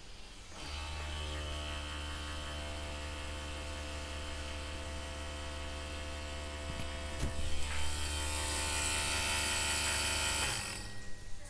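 BMW ABS hydraulic unit's electric pump motor running steadily for about ten seconds, driven by a scan-tool active test used to push trapped air out of the ABS unit during brake bleeding. It starts about half a second in, gets a little louder about two-thirds of the way through, and cuts off shortly before the end.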